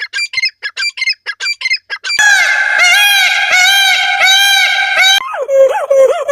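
Bird calls in three abrupt runs. First comes a fast series of short chirps, about five a second. About two seconds in, a louder run of repeated arching, ringing notes begins. Lower warbling notes take over about five seconds in.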